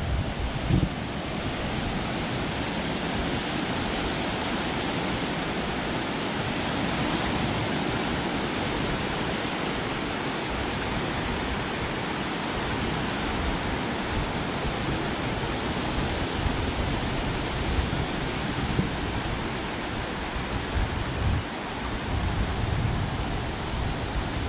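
Small surf breaking and washing over the shallows at the water's edge, a steady rush of water, with wind buffeting the action camera's microphone in an uneven low rumble.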